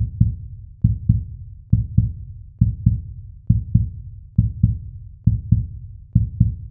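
Heartbeat-style deep double thump, lub-dub, repeated steadily about once a second, eight beats in all.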